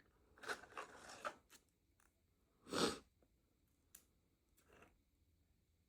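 Crisp crackling of chips being handled, with one louder, brief crunch near the middle and a few faint clicks after it.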